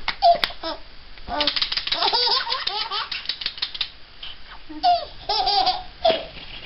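An infant laughing in several bursts of rapid, breathy giggles and belly laughs.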